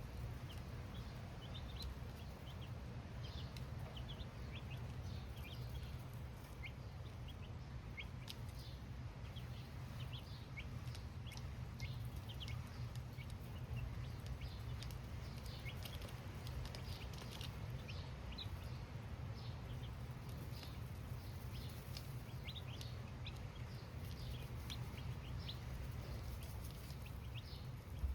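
A flock of baby chicks cheeping: many short, high peeps, each falling in pitch, overlapping continuously over a steady low hum.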